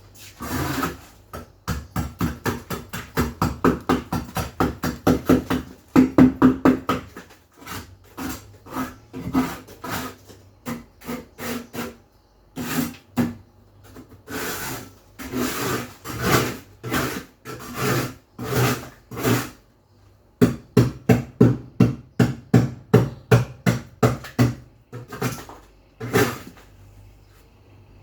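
Rapid back-and-forth scrubbing, about three to four strokes a second, in runs broken by short pauses.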